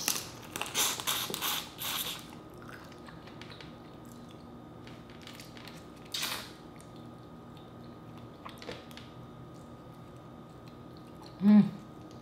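Close-up eating sounds of boiled crawfish: several quick sucking and cracking sounds in the first two seconds, another about six seconds in, and small clicks of the shells between them. A short hummed "mm" near the end.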